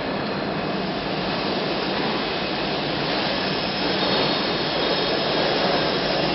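Hydraulic injection moulding machine running: a steady mechanical hiss and rush with a low, even hum underneath.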